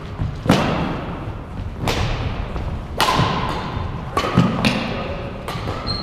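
A series of thuds, about four in six seconds, each followed by a short echo.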